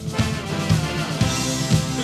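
Background music: a band song with drum kit and bass, a steady beat of about two thumps a second.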